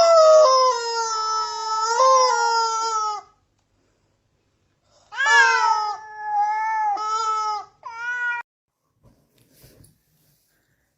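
A cat meowing: two long, drawn-out meows, the second breaking into three shorter ones.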